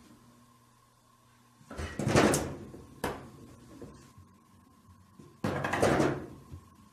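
Frosted-glass sliding door rattling in its track as a cat paws at it, trying to open it: two rattles of about a second each, with a single sharp knock between them.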